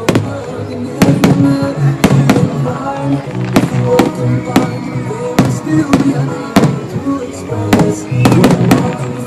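Fireworks going off in a rapid, irregular series of sharp bangs, over a song playing in the background.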